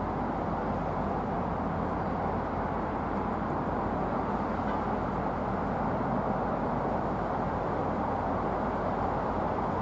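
Steady rumble of a diesel train, with a low engine hum underneath and no change in level.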